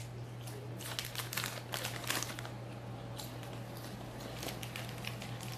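Crackling of potato chips being eaten: crunchy chewing and the chip bag crinkling, in a cluster of sharp crackles early on and a few scattered ones later, over a steady low hum.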